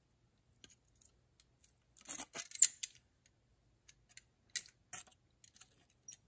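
Locking pliers and rusty steel trap pans being handled and fitted together: scattered metallic clicks and clinks, with a quick cluster about two seconds in and a single sharp click a little past halfway.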